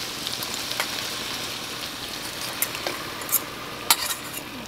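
Chicken pieces sizzling in a hot pan as the honey garlic sauce is poured in, the sizzle dying down after a couple of seconds. A metal spoon scraping out the steel bowl gives a few sharp clinks in the second half.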